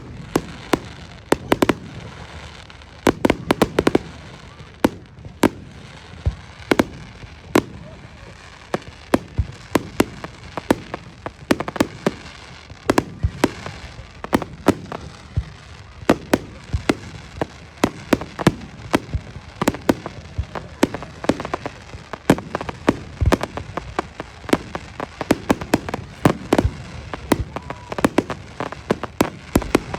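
Fireworks display: a rapid, continuous run of sharp bangs and cracks from bursting shells, several a second, over the murmur of a crowd.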